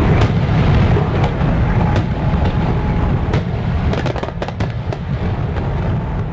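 Fireworks sound effect: a dense low rumble of bursts with sharp crackles scattered through it and a quick cluster of crackles about four to five seconds in, slowly easing in loudness.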